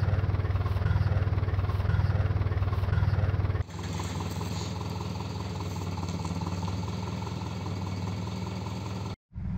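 A motor vehicle's engine idling steadily with a low hum. The sound changes abruptly and gets quieter a little over a third of the way in, then drops out for a moment near the end.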